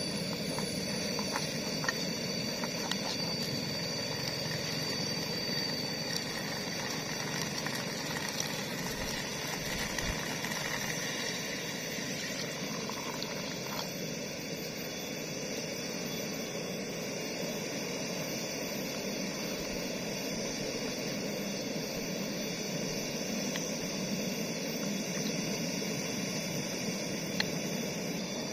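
Portable camping gas stove burning with a steady hiss under an aluminium pot of bubbling liquid, with a few light taps of a wooden spatula against the pot.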